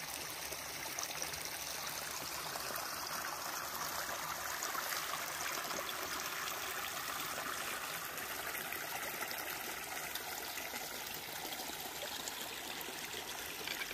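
Small mountain creek running low, a steady trickle and gurgle of flowing water.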